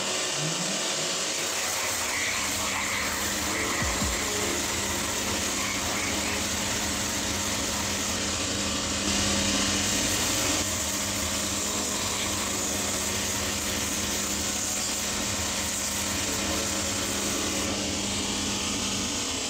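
Cobbler's finishing machine running steadily, its sanding wheel grinding down the edge of a new leather sole to trim it to the shoe's contour.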